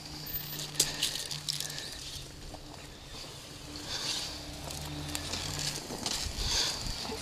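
Dirt bike engines running faintly with a low steady hum that drops out and returns, mixed with scattered clicks and knocks.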